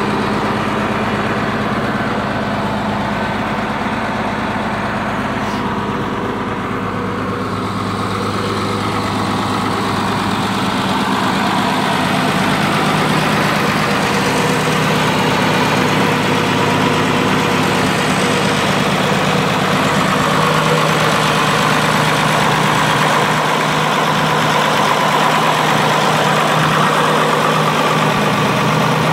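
Farmall 1456 tractor's turbocharged six-cylinder diesel engine idling steadily, heard up close, getting slightly louder in the second half.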